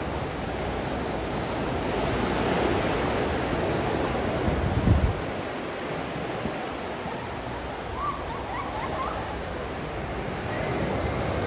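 Sea surf washing onto a shallow sandy beach, a steady hiss of water, with a brief low rumble about halfway through.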